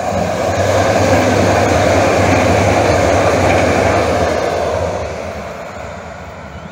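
Electric light rail train with an overhead pantograph passing close by at speed. Its running noise swells as it arrives, stays loud for about four seconds, then fades as it moves away.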